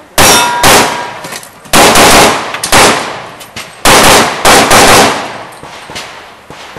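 A string of about eight pistol shots over some five seconds, several in quick pairs, each dying away in echo. A steel target rings for a moment after the first shot.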